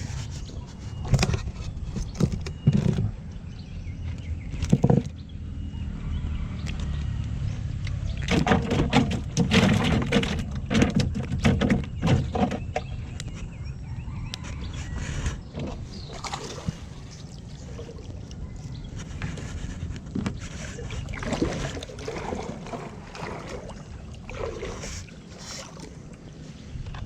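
Water sloshing and splashing around a small boat, with scattered knocks against the hull, as a gill net is hauled in with fish caught in it.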